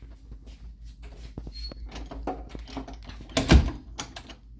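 Clicks and rustles of a budgie cage being handled, with one loud knock about three and a half seconds in.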